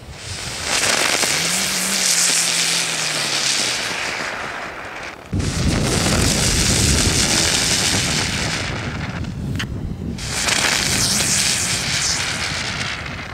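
Ground spinner fireworks hissing as they whirl on the ground, one after another. One runs from about a second in, the next starts suddenly about five seconds in, and a third follows near ten seconds.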